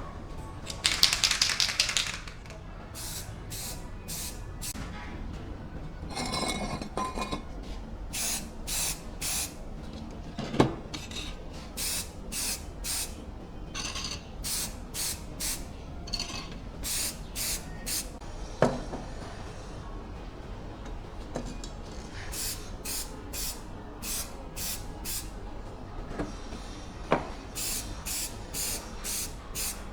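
Short hissing strokes repeated about once a second, with one longer, louder hiss about a second in and three sharp metallic knocks spread through.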